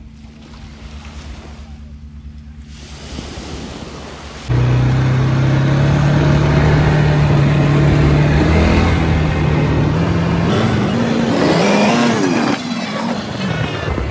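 ATV engine running, a quiet hum at first, then loud and steady from about a third of the way in. Its pitch climbs as it speeds up near the end, and the level then falls back.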